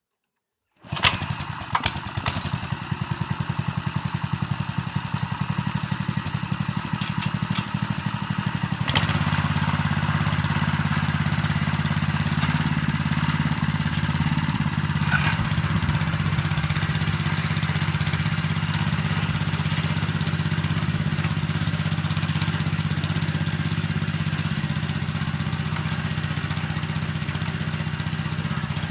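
7 hp engine of a Patriot Kuban M walk-behind tractor running steadily while rotary tilling soil. It comes in abruptly about a second in, and about nine seconds in it runs louder and fuller, then holds steady.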